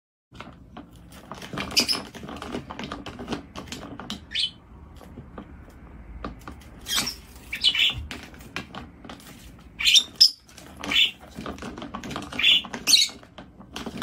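Rosy-faced lovebird giving short, high-pitched chirps, mixed with rapid clicking and knocking from the plastic swing lid of a trash bin as the bird pushes it and it swings.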